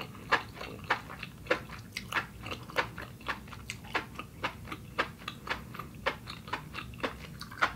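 Close-miked chewing of cooked enoki mushrooms: a steady run of crisp mouth clicks, about three a second.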